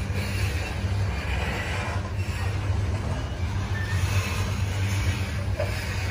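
A BNSF coal train's open-top coal cars rolling past on steel rails: a steady low rumble with wheel hiss that swells and eases a little as the cars go by.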